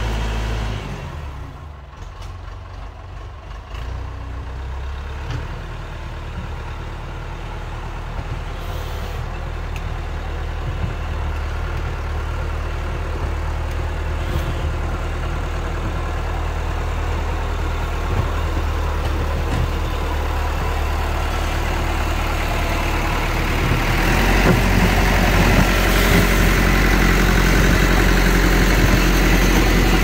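Perkins diesel engine of a Massey Ferguson 50E backhoe running as the machine drives up and passes close by. It grows steadily louder and is loudest over the last few seconds.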